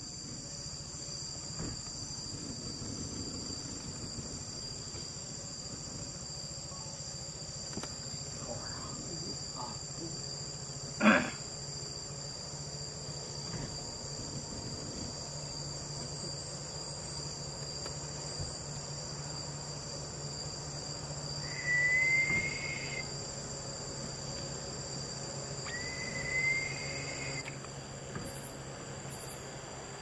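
Steady night chorus of rainforest insects, a high continuous trilling, under a low hum. About eleven seconds in there is one brief loud sound, and later two short whistles, each about a second long and rising a little at the start.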